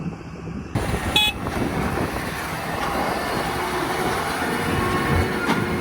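Farm tractor and machinery running steadily, starting abruptly under a second in, with a brief high-pitched beep about a second in.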